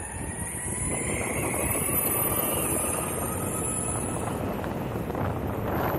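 Electric skateboard's Boundmotor hub motors whining as the board rides, the whine rising in pitch over the first couple of seconds as it speeds up, over the steady rumble of urethane-sleeved wheels rolling on asphalt and wind on the microphone.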